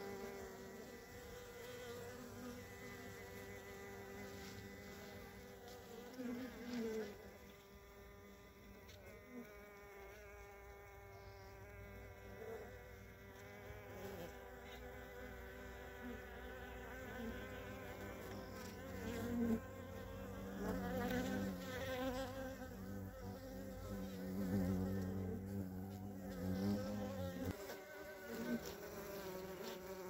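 Many honeybees buzzing on the comb: a steady hum of overlapping, slightly wavering tones that swells louder in the second half.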